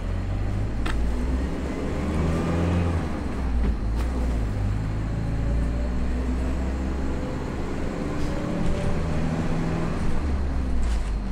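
Engine and road noise heard from inside a moving vehicle: a deep steady rumble with the engine's note rising and falling as it changes speed.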